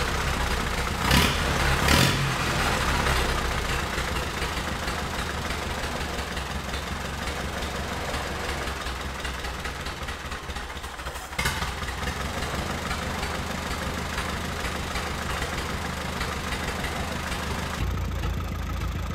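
1942 Silver King Model 41 tractor's four-cylinder engine running steadily at idle, freshly brought back to life. It gives two brief louder bursts about a second and two seconds in.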